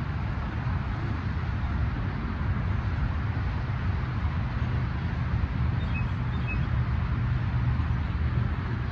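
Wind buffeting the microphone: a steady low rumble that rises and falls a little.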